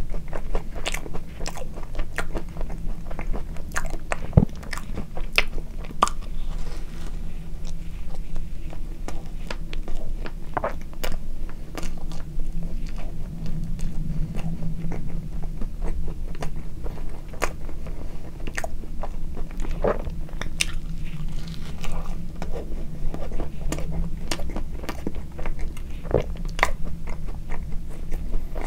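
Close-miked chewing of a soft strawberry-cream and red-bean bun, with many wet mouth clicks and smacks.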